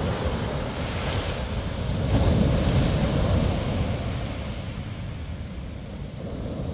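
Ocean surf breaking and washing up the beach, with wind rumbling on the microphone. The wash swells about two seconds in, then eases.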